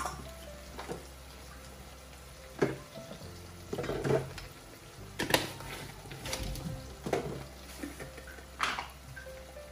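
Scattered clicks and taps of a plastic spoon against a plastic seasoning jar and frying pan as seasoning is scooped into a pan of tomato sauce, about eight in all, over soft background music.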